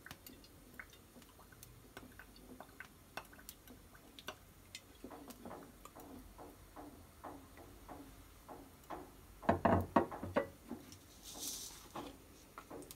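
Sesame oil heating in a small tempering pan on a gas burner, giving faint, scattered ticks and crackles. A louder run of clicks comes about ten seconds in, followed by a brief hiss.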